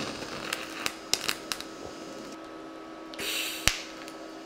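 TIG welder tack welding steel: a steady hum with scattered sharp clicks, and a short hissing arc burst about three seconds in that ends in a sharp click.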